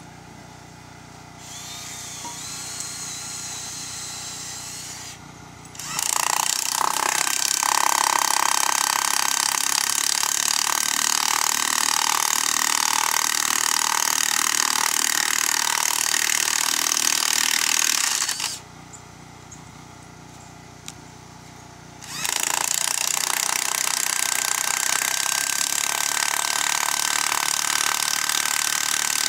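Corded electric drill boring pilot holes into a pressure-treated wooden stair frame for lag bolts. It runs steadily for about twelve seconds, stops for a few seconds, then runs again to the end. A quieter sound comes first.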